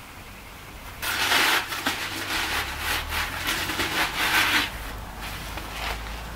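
Gritty scraping and rubbing of coarse pumice concrete mix being handled with rubber-gloved hands. It starts about a second in and eases off near the end.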